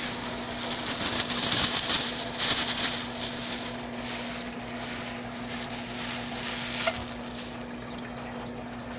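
Crackly rustling handling noise, loudest over the first few seconds and then fading, over a steady low hum.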